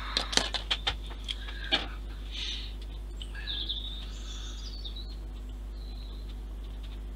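A quick run of small, sharp clicks in the first two seconds as pliers work on the model's rigging, then a few short bird chirps with little rising and falling glides a few seconds in. A low steady hum runs underneath.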